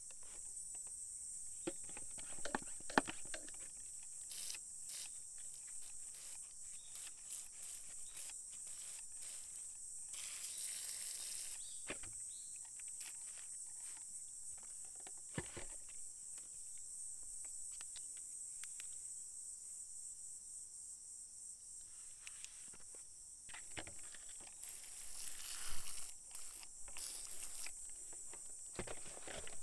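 Insects chirring steadily in a high, continuous drone, with scattered small clicks and rustles and two brief louder rushes of noise, about ten seconds in and again near twenty-five seconds.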